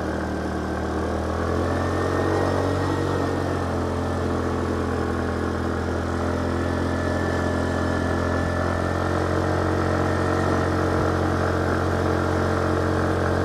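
Motorcycle engine pulling steadily under load while climbing a steep hill, one even engine note.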